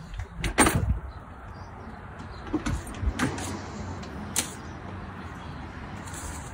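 Suitcases and bags being handled: a couple of loud knocks about half a second in, then scattered clicks and knocks a few seconds later, over a steady low background rumble.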